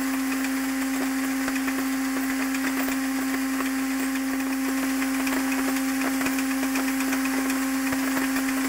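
Rotary thread rolling machine running, rolling flutes into steel nails: a steady hum under a dense, rapid clicking rattle of nails, with a broad hiss.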